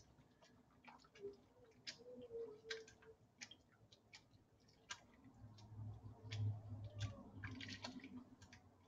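Faint water sloshing and dripping as a hand presses wet longwool fleece down into a sink of hot water, working a conditioning fiber rinse through it, with scattered small ticks and clicks.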